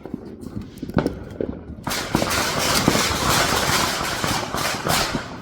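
Fireworks going off: a few sharp bangs, the loudest about a second in, then about three seconds of dense crackling that stops shortly before the end.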